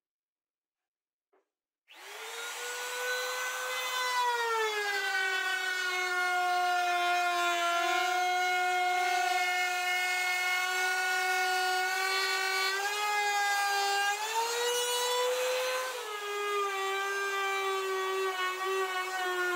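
Compact trim router starting up about two seconds in and cutting plywood: a steady high-pitched motor whine that drops in pitch a couple of seconds later, rises briefly near the end and then drops again.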